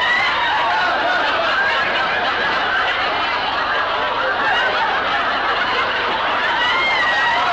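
A live studio audience laughing steadily, with many voices overlapping and no break, from the soundtrack of a played-back 1950s sitcom clip.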